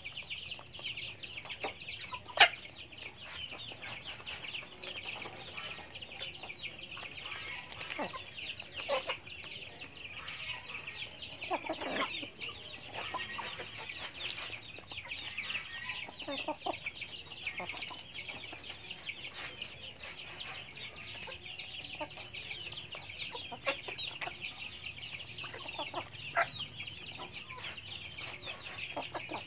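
Backyard hens and a rooster clucking now and then while foraging, over a steady high-pitched chirring background. A sharp click about two seconds in is the loudest sound.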